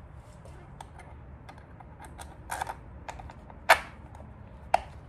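Small clicks and taps of metal hardware and a plastic fog-light bracket being fitted together by hand: a Hella Comet 550's bolt, spacer and washers. A sharp click comes a little after three and a half seconds and another near the end.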